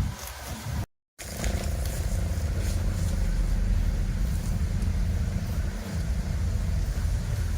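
A steady low rumble like a motor vehicle's engine running, after the sound cuts out completely for a moment about a second in.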